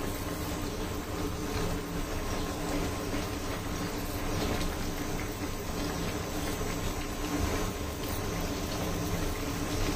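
Okra and potato curry simmering and bubbling in a wok, with a steady hum underneath.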